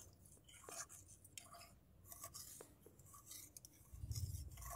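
Faint scraping and light clinking of a metal spatula stirring milk as it thickens into khoya in a metal kadhai, with a low rumble about four seconds in.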